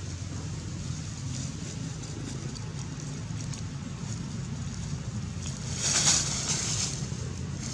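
Dry fallen leaves crackling and rustling briefly, about six seconds in, as a monkey moves through the leaf litter, over a steady low rumble.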